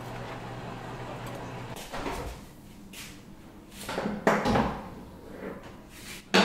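Refrigerator being opened and loaded: scattered knocks and clunks of doors, drawers and containers, with a sharp loud knock near the end. A steady low hum stops about two seconds in.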